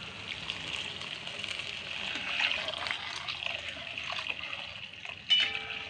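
Hot milk poured into a steel wok of ghee-roasted daliya (cracked wheat) and stirred with a steel spoon: liquid splashing and bubbling, with light clicks of the spoon against the pan. A brief steady pitched sound near the end.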